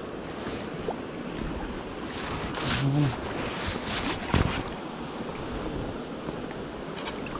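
Shallow river running fast over stones in a riffle: a steady rush of water. A brief knock about four and a half seconds in.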